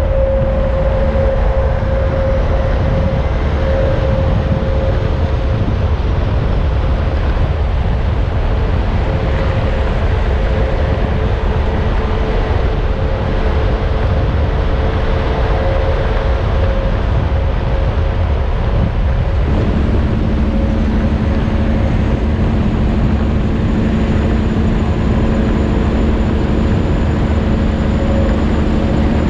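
Steady engine and road noise of a vehicle driving on the road: a continuous low rumble with a held hum whose pitch pattern shifts abruptly about 19 seconds in.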